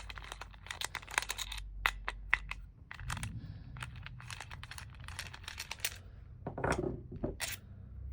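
Small metal screws being backed out of a swerve module's wheel mount with a hand tool: a run of light metallic clicks and ticks, busiest in the first few seconds, with a few louder knocks about six and a half seconds in.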